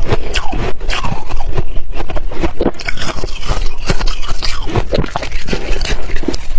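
Close-miked chewing of hard refrozen ice and freezer frost: a rapid, loud run of crisp crunches and cracks as it is bitten and ground between the teeth.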